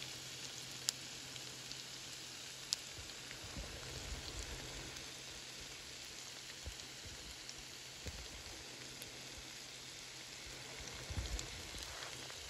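Food frying in a pan: a steady sizzle with crackles and two sharp pops of spitting fat in the first few seconds, and a few low knocks near the end.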